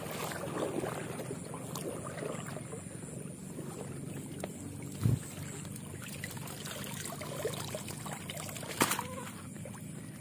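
Water sloshing and trickling as a hand scoop net is swept through shallow water among floating plants and lifted out, water streaming from the mesh and weeds. A dull thump comes about halfway through and a sharp knock near the end.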